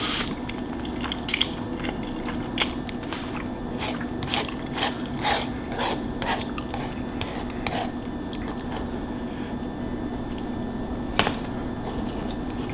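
Close-up eating sounds: chewing with a run of wet mouth smacks and clicks, then quieter, with one sharper click near the end.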